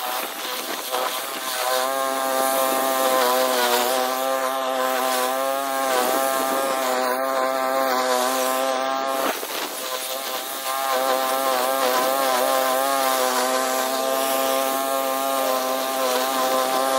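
Walk-behind gas lawn mower's small engine running steadily while cutting grass, its note dipping briefly a couple of times in the middle.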